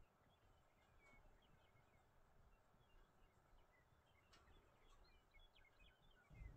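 Near silence, with faint scattered chirps of small birds.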